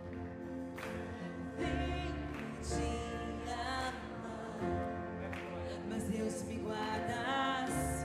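Gospel worship music: a band holding sustained chords over a steady bass, with a singing voice making wavering melodic runs twice.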